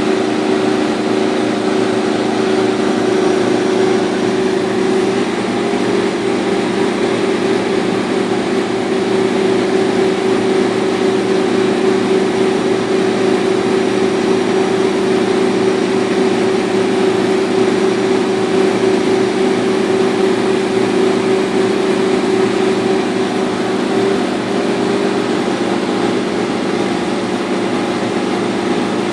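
Laser cutter running while it cuts half-inch birch: a steady machine hum with a constant hiss of moving air.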